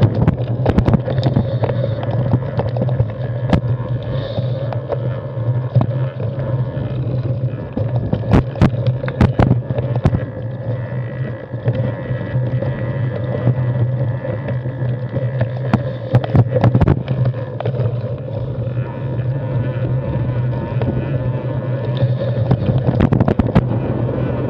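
Carbon 6Fattie mountain bike rolling downhill over a rocky dirt trail: a steady rumble of tyres and wind on the handlebar camera, broken by sharp knocks and rattles as the bike hits rocks, in clusters about eight and sixteen seconds in and again near the end.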